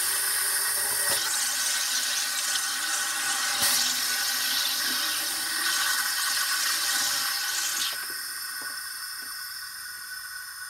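SodaStream Spirit carbonating a bottle of water: carbon dioxide hissing and bubbling into the water while the button on top is held down, surging briefly a couple of times, then stopping about eight seconds in.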